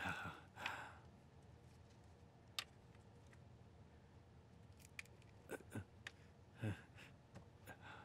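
Quiet room tone with a few soft, short noises: a breathy sound in the first second, a sharp click a few seconds in, and soft knocks and rustles near the end.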